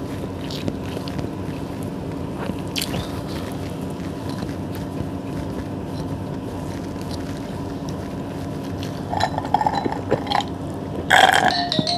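Ice cubes clinking against a glass as an iced soft drink is picked up and sipped through a straw, the clinks loudest near the end. Before that, only faint soft eating sounds over a steady hum.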